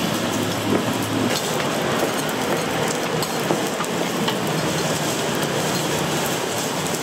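Steady sizzling of dough and oil frying on a griddle, with a low hum under it and scattered light clicks.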